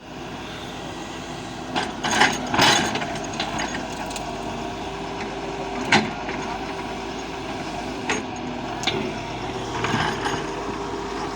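Doosan DX140W wheeled excavator's diesel engine running steadily under work, with a handful of sharp knocks and clatters from the digging.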